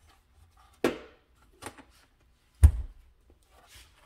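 Knocks and clunks of a turbocharger and its oil drain line being handled on a metal workbench. There are three sharp knocks, the third, about two and a half seconds in, the loudest with a dull thud, and then fainter handling noise near the end.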